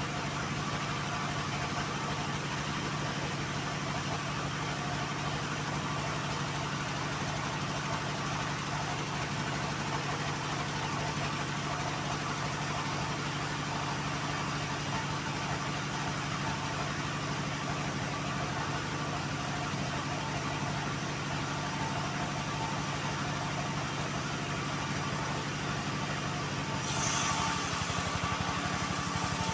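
Homemade band sawmill running steadily with an even mechanical hum. A little before the end, a louder, higher hiss joins in.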